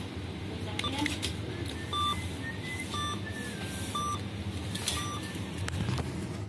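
ATM beeping: a short, steady electronic tone repeated four times about a second apart, with a few sharp clicks over a steady hum.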